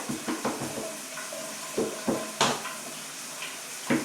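Light knocks and clatters from handling the guitar body and its clamps, several in quick succession near the start and again around two seconds in, over the steady hiss of a running shower.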